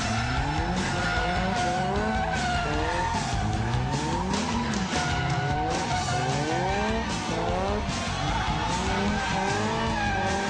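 Convertible Nissan 240SX drifting: its engine revs up and falls back again and again while the rear tyres squeal and skid.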